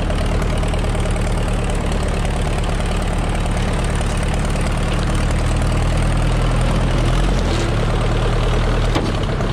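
Case backhoe loader's engine running steadily under work, loud and close.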